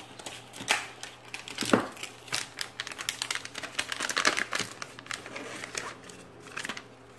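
Metallised anti-static bag crinkling and rustling as a solid state drive is slid out of it, with scattered sharp clicks and taps, the loudest about a second in and again just before two seconds.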